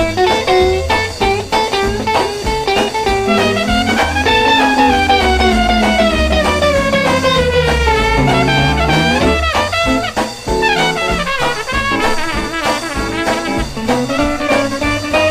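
Instrumental break of an uptempo honky-tonk country record: a lead instrument plays sliding, bending notes over a steady bass and rhythm accompaniment.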